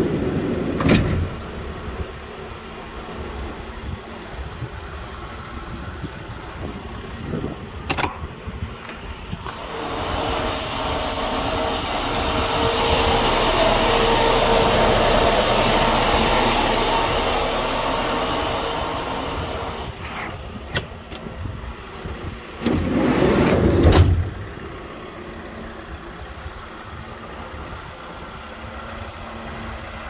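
Thermo King refrigeration unit's evaporator fan blowing steadily inside the van's insulated cargo box, over the steady hum of an idling engine. The fan noise swells up about a third of the way in and fades about two-thirds through. There are sharp metal door-latch clicks near the start and again about eight seconds in, and a louder clunk and rumble about three-quarters of the way through.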